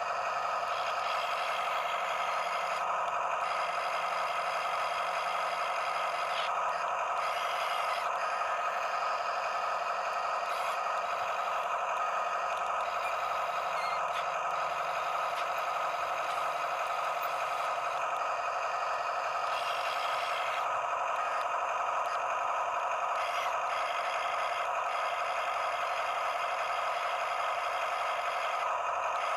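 Huina 1573 RC excavator's small electric motors and gearboxes whining steadily as it works, with a few brief changes in the whine.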